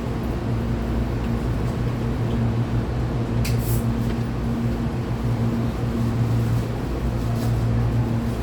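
Hankyu 8200-series electric train standing still, its onboard equipment giving a steady low electrical hum with no motor whine. A brief hiss comes about three and a half seconds in.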